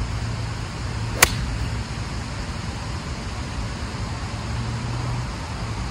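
A golf club, a pitch wedge, striking a ball off the fairway turf: one sharp click about a second in. A steady low background rumble runs underneath.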